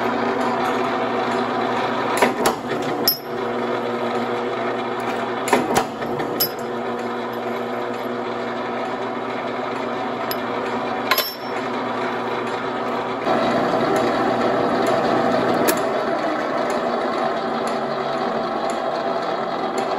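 Buffalo Jr ironworker running: a steady motor-and-flywheel hum, broken by several sharp cracks as it shears and punches steel.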